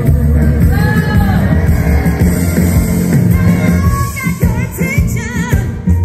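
Upbeat pop-rock song with a heavy bass beat and a singing voice carrying the melody.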